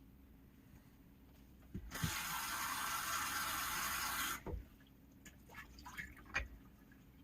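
Bathroom sink tap turned on, water running into the basin for about two and a half seconds, then shut off, with a few small knocks around it.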